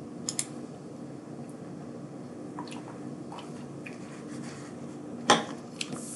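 Quiet room tone with a steady low hum, broken by a couple of soft clicks near the start, a few faint small noises midway, and one sharp click about five seconds in.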